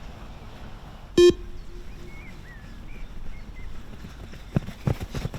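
A single short, buzzy electronic beep from a beep test (multi-stage fitness test) about a second in, the timing cue for the runners to reach the line on each shuttle. There are two dull thumps near the end.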